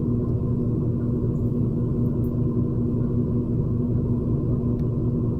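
Steady low mechanical hum at one constant pitch, unchanging throughout.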